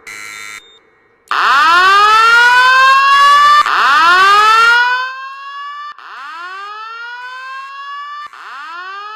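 Fire alarm evacuation speakers sounding a whoop tone: a short buzzy beep, then two loud rising whoops of about two seconds each, followed by two quieter whoops.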